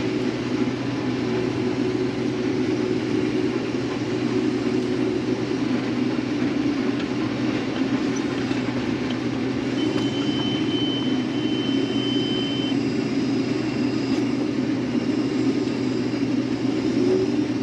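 Case IH 2366 combine running steadily while harvesting soybeans, heard from inside the cab: an even drone of engine and threshing machinery. A faint high whine joins it for a few seconds midway.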